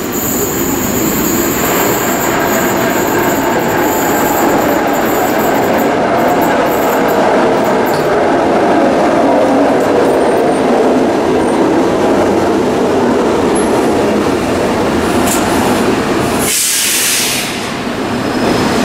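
Athens Metro Line 1 electric train pulling into the platform and slowing to a stop, with a loud, steady rumble of wheels and running gear. Near the end comes a short, sharp hiss of air.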